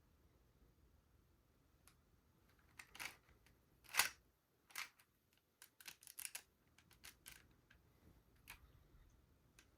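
Sharp plastic clicks and clacks of LEGO pieces, most likely the brick-built Glock 19 being handled and worked. The loudest snap comes about four seconds in, followed by a quick run of small clicks and a few single ones.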